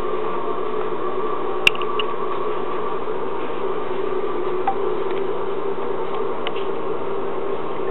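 Steady hum of aquarium equipment running, with two steady pitches in it. A sharp click comes a little under two seconds in and a fainter one about halfway through.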